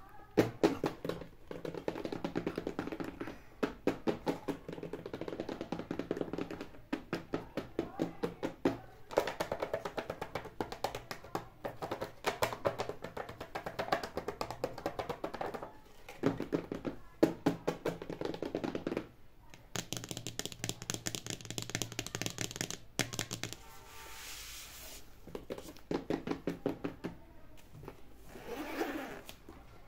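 Fingernails and fingertips tapping and scratching rapidly on a padded nylon zippered case and its rubbery badge, mixed with music.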